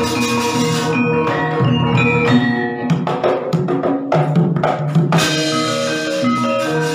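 Javanese gamelan music: metallophones ringing sustained pitched notes, with a flurry of drum strokes and knocks between about three and five seconds in.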